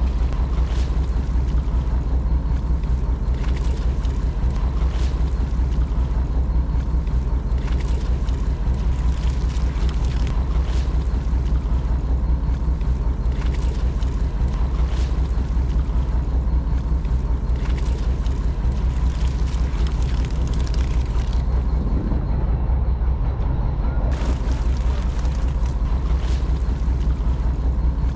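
Fishing boat's engine running steadily, a low drone, with scattered short knocks over it.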